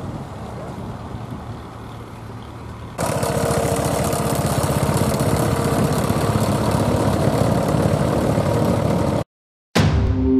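A vintage tractor engine running close by with a steady rhythmic beat, which comes in suddenly about three seconds in after wind noise on the microphone. It cuts off near the end, and a short outro jingle begins.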